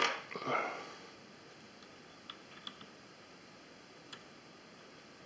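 Small parts of a plastic mini quadcopter being handled: a sharp click at the start and a brief scrape, then a few faint scattered ticks.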